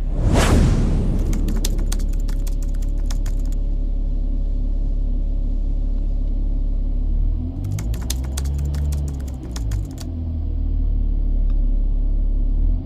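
Volkswagen Touareg engine running with a steady low drone and a faint steady whine, opening with a brief loud whoosh. Two runs of rapid clicking come a second in and again past the middle, while the engine note wavers up and down.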